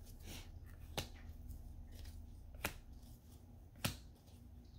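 Tarot cards snapped down one at a time onto a wooden table: three sharp, faint slaps about a second and a half apart, with a softer card rustle near the start.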